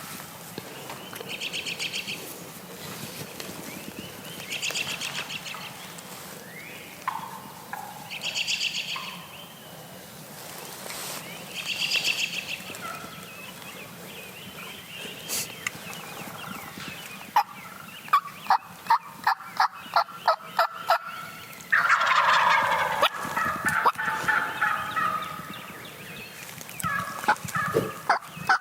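Wild turkeys gobbling repeatedly, each gobble a short rattling burst, the loudest one a little past two-thirds of the way through. Around the middle comes a quick series of about ten sharp, evenly spaced calls.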